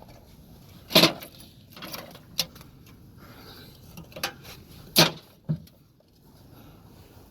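Several separate short thumps and clatters, the two loudest about a second in and about five seconds in, with smaller knocks between.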